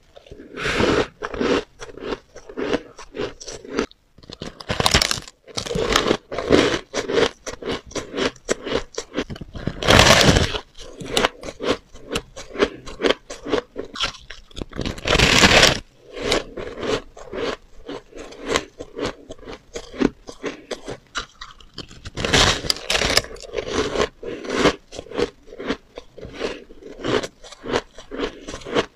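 Close-miked biting and chewing of a block of soft shaved ice, dyed blue: a dense run of rapid crunches, with a few louder, longer bites every several seconds.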